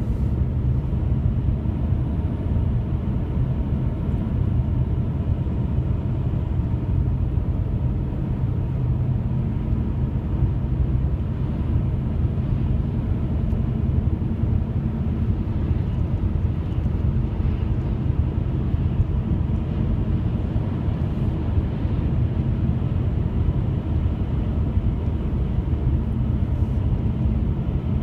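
A steady low droning rumble with faint humming tones running through it, unbroken and even in level; it is the kind of sound presented as mysterious 'strange trumpet sounds' in the sky.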